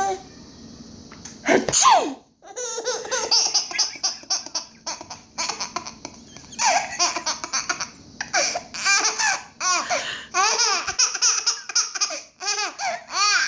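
A baby laughing hysterically in a long run of short, breathy bursts of giggles, set off by an adult's loud fake sneeze about two seconds in.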